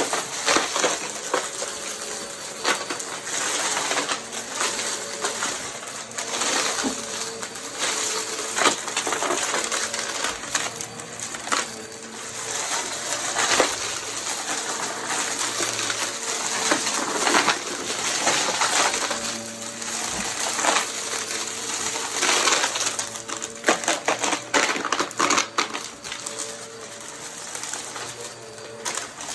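Vacuum cleaner running, with a steady motor hum under constant irregular crackling and crunching as debris is sucked up.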